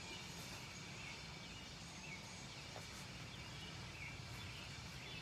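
Faint steady background noise, with a few faint short chirps now and then.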